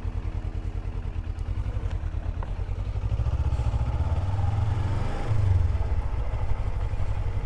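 2018 Suzuki GSX250R's parallel-twin engine idling with a steady low pulse, then pulling away in low gear from about three seconds in, growing louder.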